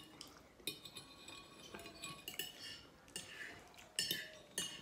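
A metal fork clinking and scraping against a china plate while scooping up risotto. There is a run of light clinks, with two sharper, ringing clinks near the end.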